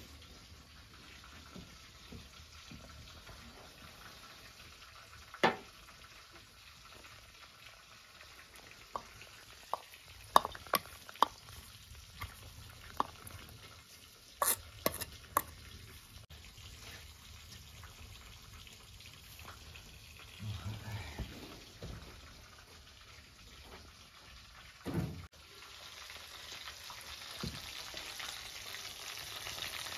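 Pieces of fish frying in oil in a metal pan, a soft steady sizzle that grows louder over the last few seconds. Scattered sharp clicks and knocks of cookware and a wooden spatula being handled come through, loudest in the middle.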